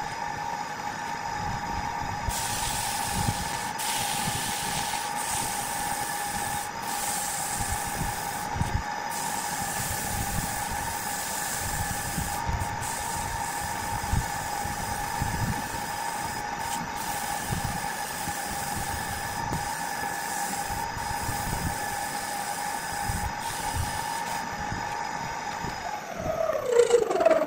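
Wood lathe running with a steady motor whine while sandpaper hisses against the spinning wood. Near the end the lathe is switched off and the whine drops quickly in pitch as it spins down.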